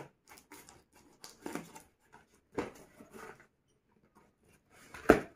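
Scissors cutting the packing tape on a cardboard box, with scattered snips, scrapes and rustles of tape and cardboard, then a single loud thump near the end.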